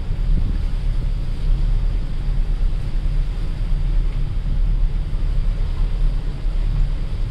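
Steady low rumble aboard a passenger ship under way, with wind buffeting the microphone.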